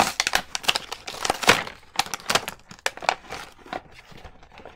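Plastic toy packaging crinkling and crackling as it is pulled open by hand: a quick run of crackles that thins out toward the end.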